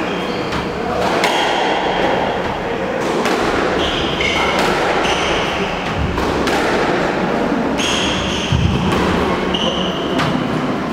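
Squash rally in a hall: the ball cracking off rackets and walls about once a second, with short high squeaks of court shoes on the wooden floor between the hits.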